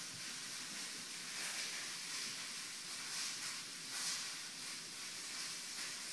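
Quiet room tone: a steady hiss with a few faint soft knocks.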